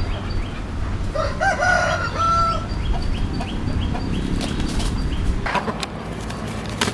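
Native country rooster crowing once, a drawn-out call starting about a second in and lasting over a second and a half, followed by short clucks from the chickens around it.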